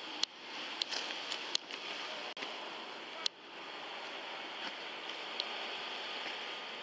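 Steady hiss and rustle on a police body-worn camera's microphone as the wearer moves, with several sharp clicks and knocks in the first three and a half seconds.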